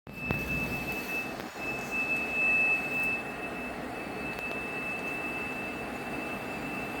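HVAC system whistling: one steady high-pitched tone over the even noise of the running unit, swelling a little about two seconds in.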